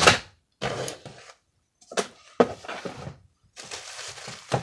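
Items being taken out of a cardboard shipping box and set down: irregular knocks and thunks, a sharp one at the start and another about halfway, with rustling of packaging in between.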